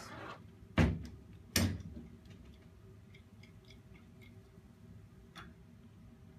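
Two sharp metal clanks about a second apart, then faint, quick ticking as a wrench works the nuts on a bicycle's coaster-brake rear hub.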